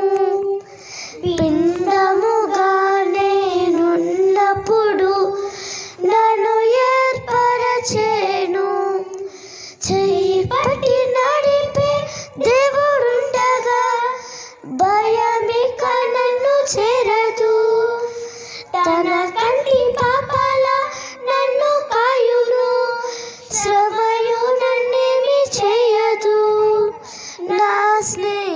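Two girls singing a Telugu Christian devotional song together into handheld microphones, in phrases with short breaths between them.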